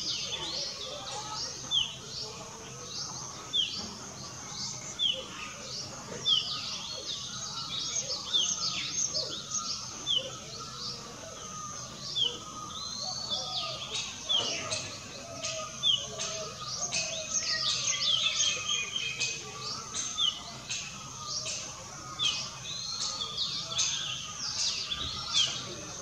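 Outdoor bird chorus: a short, downward-sliding chirp repeated about once a second, with many other birds chirping over it, busiest a little past the middle.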